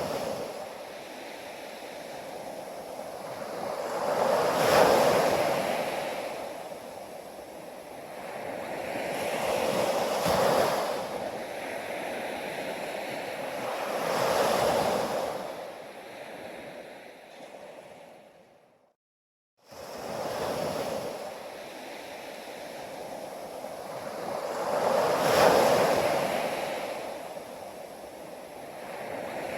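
Sea waves breaking on a beach, swelling and receding every five seconds or so. The sound cuts out completely for under a second about nineteen seconds in, then the waves resume.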